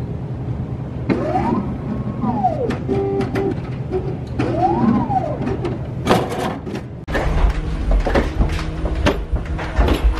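Drinks vending machine's motor whirring up and down in pitch twice as it runs after a selection is keyed in, with scattered clicks. About seven seconds in it gives way to a low rumble with clicks.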